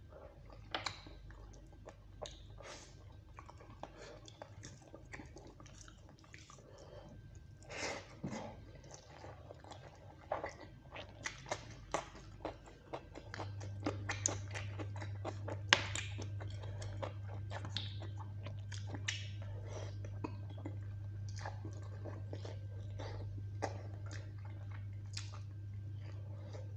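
Close-miked chewing and mouth clicks of a man eating chicken curry and rice with his hand. A steady low hum comes in about halfway through.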